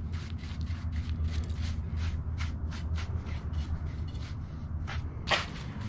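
A paintbrush swept over slate tile in quick, repeated, irregular strokes, brushing dust out of the tile joints to get them ready for grout. A steady low hum runs underneath.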